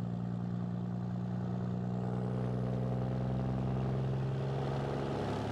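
Scania truck with an open straight-pipe exhaust, its engine running steadily at motorway cruising speed, heard from inside the cab as an even low drone.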